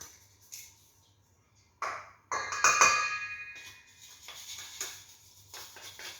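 Metal kitchenware knocked together: a knock, then a louder clang about two and a half seconds in that rings on for over a second, followed by lighter scattered taps.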